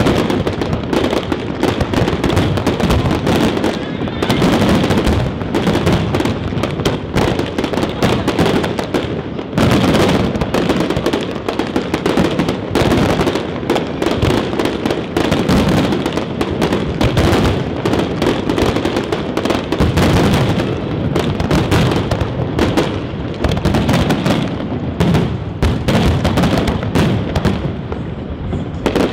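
Aerial fireworks bursting in a dense, continuous barrage, with many bangs in quick succession and no pause.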